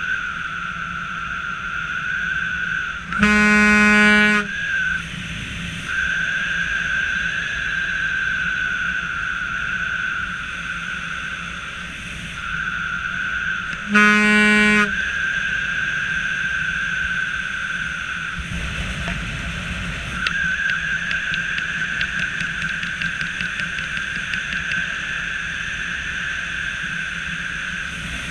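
Vehicle running with a steady high-pitched whine, and two loud horn blasts, one about three seconds in and a shorter one about fourteen seconds in. A brief low rush of noise comes in around nineteen seconds.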